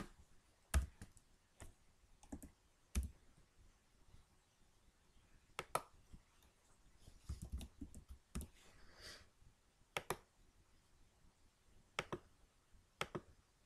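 Computer mouse clicks and keyboard key presses: a scattering of single sharp clicks, with a short quick run of softer key taps about halfway through.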